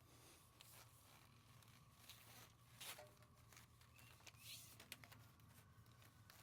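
Near silence: a faint steady low hum with scattered soft clicks and rustles of handling.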